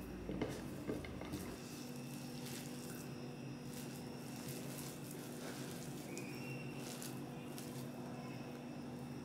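Hands mixing sliced onions into a thick gram-flour pakora batter in a bowl: faint, soft squelching and rustling, with a couple of small knocks in the first second. A steady low hum runs underneath.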